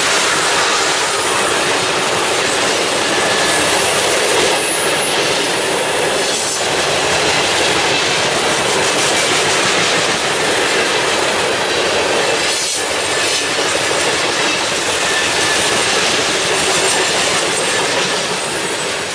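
Freight train of coal hopper and gondola cars rolling past close by: a steady, loud rolling noise of steel wheels on rail, with faint high-pitched wheel squeal. The sound fades out near the end.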